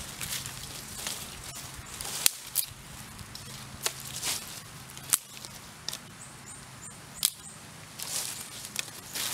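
Dry fallen leaves rustling and crunching as a person walks through them and picks up dry twigs, with several sharp cracks of twigs snapping or knocking together.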